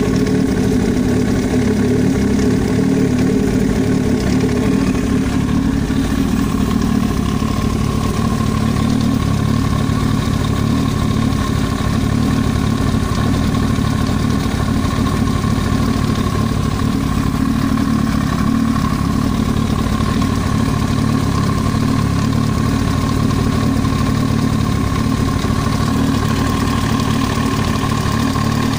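Yamaha YZF-R1 inline-four motorcycle engine idling steadily, carrying the knocking noise from the cylinder head that the owner is trying to track down. The tone of the running changes slightly about six seconds in.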